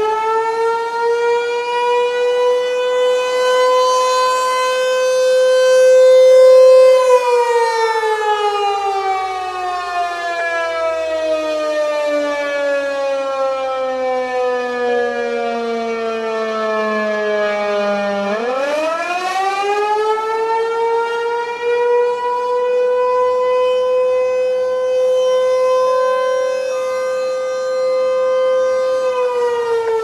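American Signal T-128 rotating tornado siren sounding a wailing attack signal on a test. Its single tone climbs to full pitch in the first few seconds and holds. About seven seconds in it slides slowly down for some ten seconds, then winds back up and holds again, beginning to fall once more near the end.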